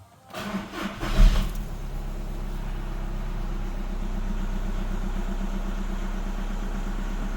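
Diesel VW Beetle engine cranked on the starter, catching just over a second in with a brief rev, then settling into a steady idle: the first start after a crank-no-start fault was fixed and a new fuel filter fitted.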